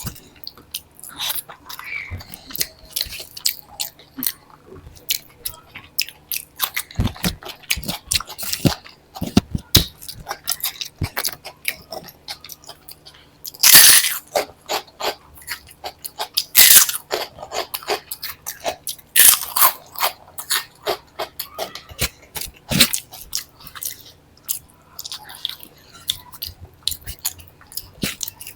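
Close-up chewing and crunching of a person eating a meal, with irregular wet mouth clicks and a few much louder crunches.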